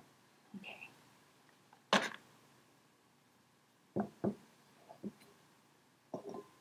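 Short knocks and clacks of a cast-iron teapot being handled: one sharp knock about two seconds in, then a quick pair of clacks as its iron handle is folded down against the pot, and a few lighter clinks near the end as the lid is taken hold of.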